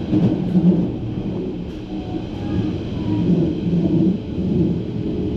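Berlin S-Bahn class 481 electric train running, heard from on board: a steady low rumble with an uneven hum.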